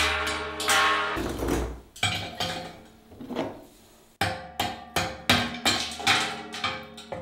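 Hammer blows on the top of a steel rod that is being driven down into ice in a metal cylinder: a series of sharp, ringing metallic knocks. They thin out for a moment, then come back loud and regular at about three a second from about four seconds in.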